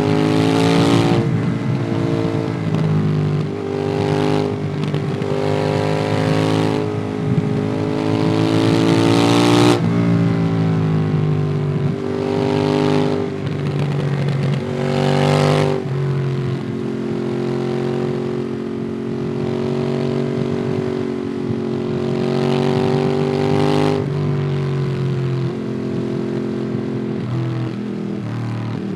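Ducati Monster 821's 821 cc L-twin through a QD Twin Gunshot aftermarket exhaust, heard from the rider's backpack: the revs climb several times and drop sharply at each upshift, then the engine runs at a fairly steady speed for a stretch before changing again near the end, with wind rush throughout.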